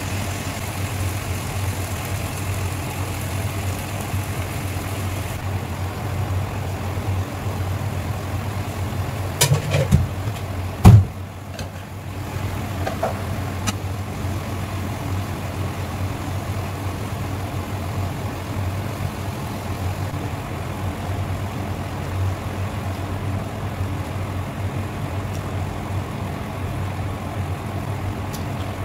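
Chicken and onions frying in a pan on a gas stove, a steady sizzle over a constant low hum. A few sharp knocks come about ten seconds in, one of them much louder than the rest.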